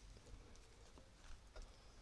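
Near silence: quiet outdoor background with a few faint light ticks and rustles.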